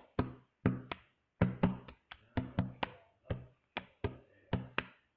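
Hands slapping a tabletop and clapping in a quick, uneven rhythm of about three strikes a second, the stomp-and-clap pattern of a table-clapping routine.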